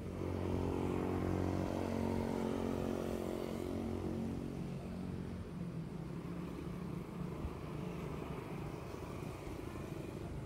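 A motor vehicle passing by, its engine loudest about a second in and fading away by about five seconds, leaving a steady low rumble of traffic.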